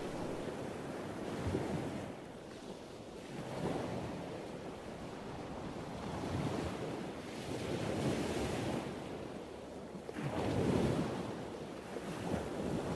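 Ocean surf: waves breaking and washing up, surging and ebbing every few seconds, with the biggest surge a little past ten seconds in.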